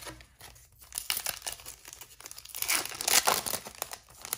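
Foil trading card pack being torn open and crinkled by hand: a dense crackle that starts about a second in and is loudest a little past the middle.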